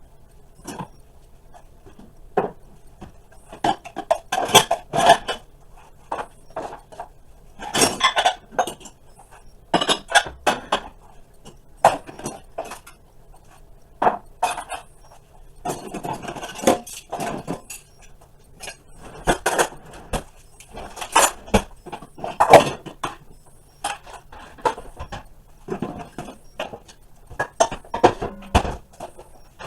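Dishes and cutlery clinking and clattering in irregular knocks as they are put away.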